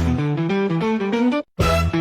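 Upbeat background music with plucked guitar notes over a bass line, briefly cutting out about one and a half seconds in.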